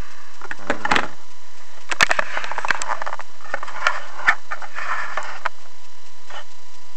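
Handling noise from a handheld camera being moved and adjusted: a scattered run of rustles, scrapes and sharp clicks that dies away after about five seconds, over a faint steady hum.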